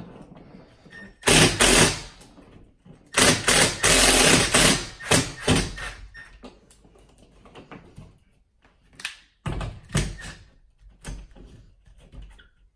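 A low-voltage mounting ring being worked into a drywall cutout: two loud scraping, rustling bursts, the second longer, then a few short knocks near the end.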